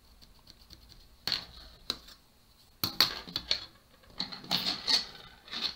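Plastic ruler, pencil and card being handled on a table: a few sharp clicks and knocks, then a stretch of scraping and rustling near the end.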